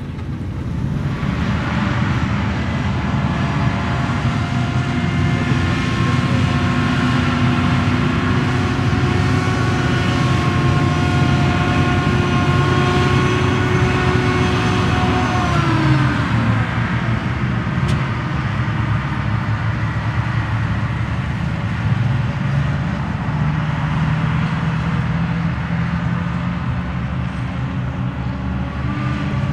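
Heavy multi-axle military truck engine running steadily with a whine. About halfway through the pitch falls as it slows, and it runs on lower after that.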